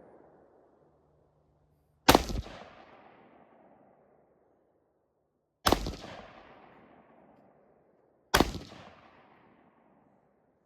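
Three shots from a scoped rifle, about three and a half and then two and a half seconds apart, each a sharp crack followed by a long echoing decay.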